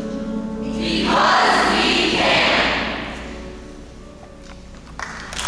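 A youth choir's final held chord ends at the start, then audience applause swells for about two seconds and fades away.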